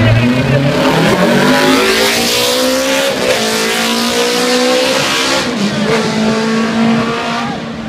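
Classic racing motorcycles passing at full throttle, engines revving up through the gears, with a drop in pitch at each shift about three seconds in and again about five and a half seconds in.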